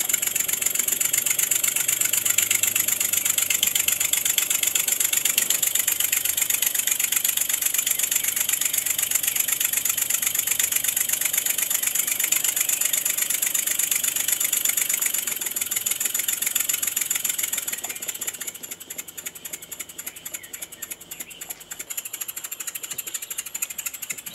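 Three-cylinder inline Wig-Wag model engine running on compressed air: a fast, even triple chuff from the exhausts over a steady hiss of escaping air. About three quarters of the way through it turns quieter and the chuffs space out as the engine slows.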